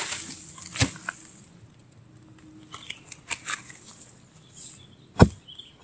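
Rustling of leaves and twigs as a long wooden pole is handled among plants, with a few sharp knocks, a loud one about a second in and the loudest about five seconds in.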